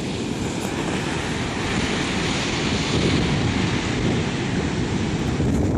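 Ocean surf breaking and washing up a sandy beach in a continuous roar, swelling briefly around the middle. Wind rumbles on the microphone underneath.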